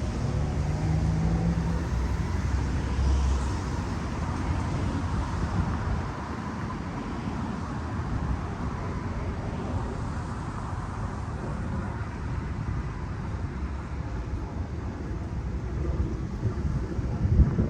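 BNSF hi-rail truck passing on the track: its engine hum is clearest at first, then a steady rumbling vehicle noise eases off and carries on. A brief low thump comes near the end.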